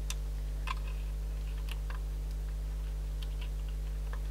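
A few faint, scattered light clicks of small parts being handled during reassembly of a cassette Walkman, over a steady low hum.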